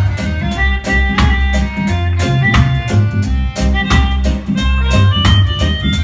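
Live band playing an instrumental passage: drum kit hits at a steady beat over a bass line and held melodic notes.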